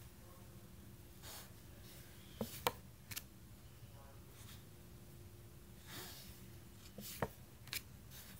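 Faint handling of tarot cards: a card slid across the deck with a soft swish, then light clicks and taps as it is set down on the other pile. This happens twice, about four seconds apart.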